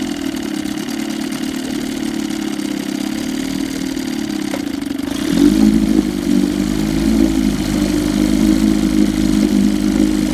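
Old Evinrude 7.5 hp two-stroke twin outboard motor running steadily in a test barrel of water. About five seconds in, its note drops slightly and gets louder as it is shifted into gear and the propeller churns the water.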